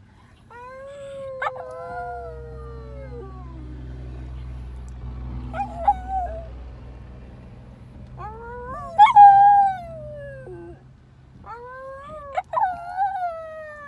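Pet dog howling at a fire truck siren: three long drawn-out howls that rise and then slowly fall in pitch, plus a short yelp-like call in between. A low steady rumble runs underneath from about two to ten seconds in.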